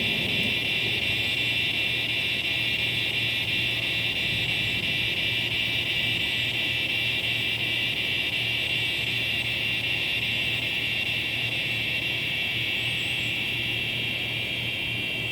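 Cicadas singing in a steady, continuous chorus of high buzzing, with a low steady rumble underneath.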